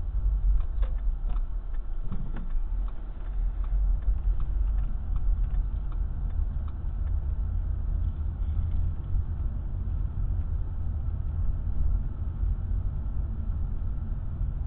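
A car driving slowly, heard from inside the cabin: a steady low rumble of engine and road noise, with a scatter of faint ticks in the first half.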